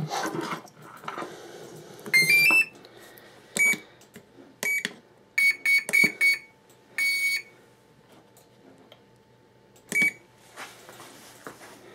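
Electronic beeps from a battery voltage and watt meter as its buttons are pressed. A quick rising three-note chime comes about two seconds in, then single short beeps. A fast run of about six beeps comes around six seconds, then one longer beep, and a last beep near ten seconds. Light handling rustle accompanies the button presses.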